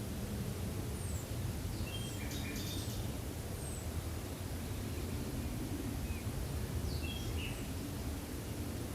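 Forest ambience: a steady low rumble with small birds giving short chirps and quick falling high whistles in two clusters, one in the first few seconds and another about seven seconds in.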